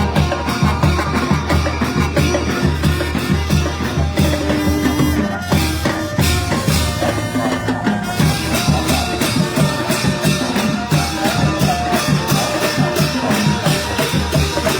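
Thai brass band (trae wong) playing, with horns over a steady, regular drum beat.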